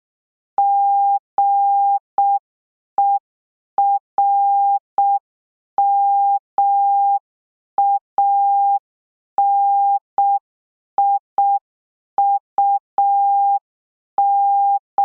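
Morse code practice tone, a single steady beep keyed slowly in short dits and long dahs, spelling out the word "GERMANIUM" (--. . .-. -- .- -. .. ..- --).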